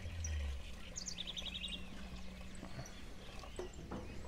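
Milk pouring from a stainless steel bucket into a plastic drum, a soft steady splashing, under a low steady hum. About a second in, a bird gives a quick run of chirps.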